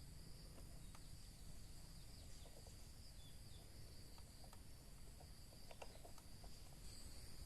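Faint, steady high-pitched insect chirring, with a few light clicks and taps.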